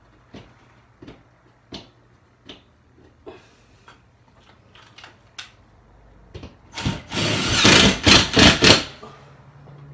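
Cordless drill/driver running in a longer burst and then several short bursts, driving screws to fasten a ceiling air-vent register. Before it come scattered light clicks and knocks from handling and fitting the register.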